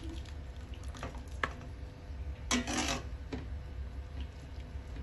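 Steel ladle knocking and scraping in a steel pot while scooping wet boiled mustard greens into a plastic blender jug: a few light clinks, then one louder clatter about two and a half seconds in, over a steady low hum.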